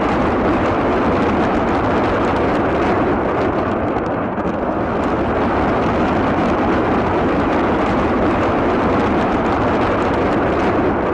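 Truck-mounted multiple rocket launchers firing a salvo: a steady, unbroken rush of rocket launch noise that holds at one level throughout.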